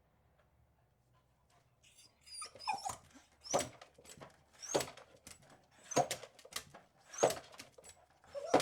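Beagle barking: after about two seconds of near quiet, a run of six sharp barks, one a little more than every second.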